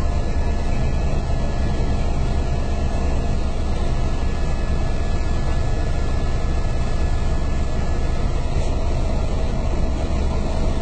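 Helicopter in flight heard from inside the cabin: a steady, loud engine and rotor drone with a heavy low rumble and a constant tone over it, unchanging throughout.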